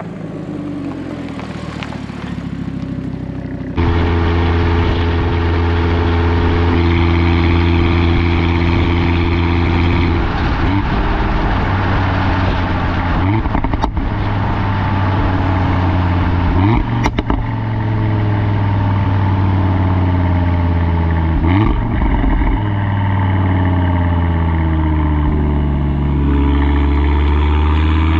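Audi RS3 8V's turbocharged five-cylinder engine heard through its RS exhaust, close to the tailpipes, while driving. About four seconds in it suddenly gets much louder and then runs at a steady pitch, with a few short swings in pitch and a rising pitch near the end as it accelerates.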